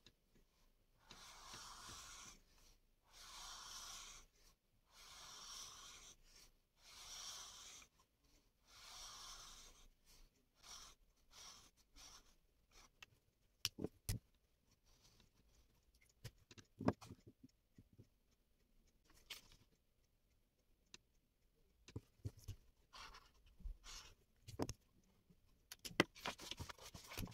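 Faint handling sounds: five even, soft swishes about a second and a half apart, then scattered light clicks and rustles.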